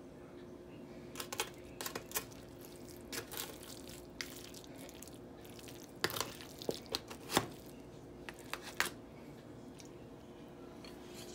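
A spoon scraping and clinking in a disposable aluminium foil pan of baked macaroni and cheese, with crinkling of the foil. The sounds are scattered clusters of short clicks and crackles, the loudest about seven seconds in, over a steady faint hum.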